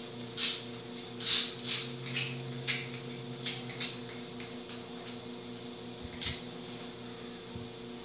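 Philco microwave oven running on a test cycle: a steady electrical hum from the transformer and fan, with about ten irregular light crackling clicks over the first six and a half seconds. The oven is being tested after a rust spot in the cavity, which caused arcing pops, was covered with a still-damp paste.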